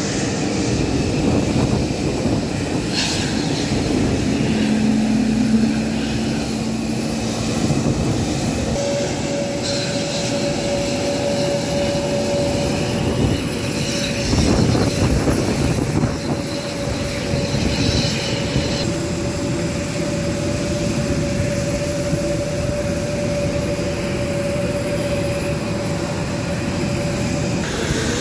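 Jet airliner engines running: a steady rumble with a held whining tone through most of it.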